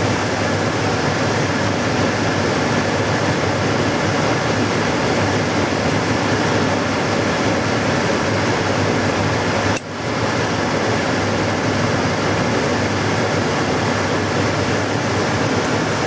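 Trane XE80 gas furnace blower running steadily, a constant rushing of air, with a brief dip a little past halfway. The furnace is calling for heat with the igniter glowing, but the burners never light: no gas is coming through.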